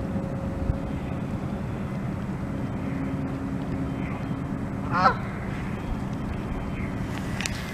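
A goose honks once, loud and short, about five seconds in, over a steady low hum, with a few faint calls before it.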